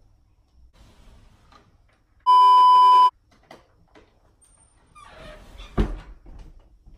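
A loud, steady, high-pitched beep lasting just under a second, about a third of the way in. A single thump near the end.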